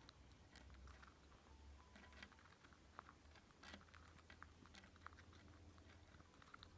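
Faint, irregular little clicks and taps as a Syrian hamster picks up pumpkin seeds from a pile on a wooden table to stuff into its cheeks, the seeds knocking against each other and the wood.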